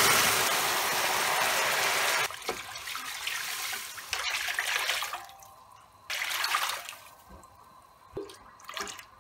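Water poured from a jug into a pan of hot caramel, splashing as it dilutes the caramel into sugar syrup. The pour is loud and steady for about two seconds, then comes in shorter, broken pours that trail off after about five seconds, with one more brief pour a little later.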